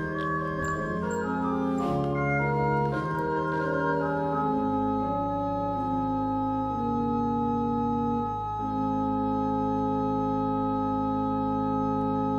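Church pipe organ closing a piece: a few quick chord changes, then a long held final chord over a deep pedal bass note, its upper notes shifting once about two-thirds of the way through.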